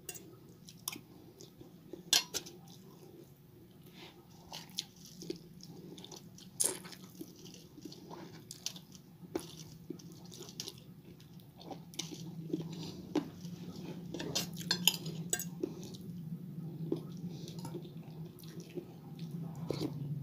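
Metal spoon and fork clicking and scraping against a plate of rice and chicken soup, in scattered single clinks, with chewing in between. A low steady hum runs underneath, louder in the second half.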